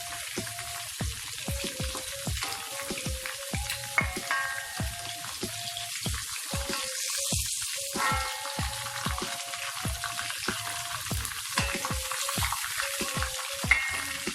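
Chicken pieces deep-frying in hot oil, a steady sizzle, with frequent clinks and scrapes of a spoon against the pan as the pieces are stirred and lifted out.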